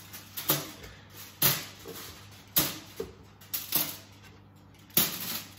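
Thick raw onion slices being picked up off a plastic chopping board and dropped one by one into a foil-lined roasting tray: about seven light knocks, unevenly spaced.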